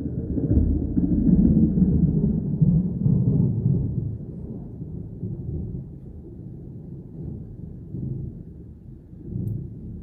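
Thunder rumbling: a loud, low roll that stays strong for about four seconds, then dies away, with a couple of smaller swells near the end.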